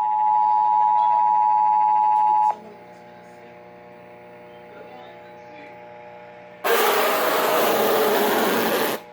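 Emergency Alert System two-tone attention signal holding steady, then cutting off about two and a half seconds in. A few quiet seconds follow, then a loud burst of static hiss lasting about two seconds near the end. No voice message follows the tones, the sign of a failed alert relay.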